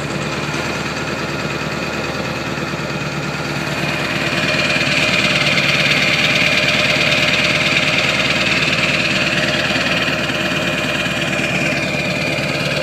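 2002 Ford 7.3-litre Powerstroke V8 turbo-diesel idling with a lope soon after a cold start, heard at the tailpipe of its 4-inch turbo-back MBRP exhaust. A steady diesel idle that grows louder from about four seconds in and eases off near the end.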